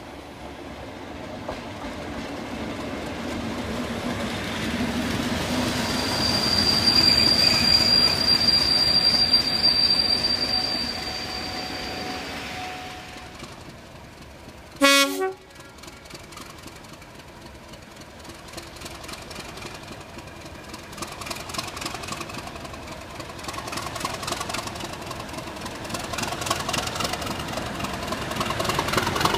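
Class 37 diesel locomotive and its coaches running through the station. The noise builds as it passes, with a high steady squeal from the wheels or brakes. About halfway in there is one brief loud horn blast, and near the end the engine grows louder again as it comes close.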